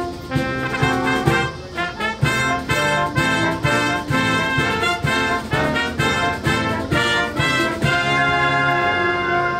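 Band brass playing a slow piece, trumpets and trombones over a steady beat, settling into a long held chord near the end.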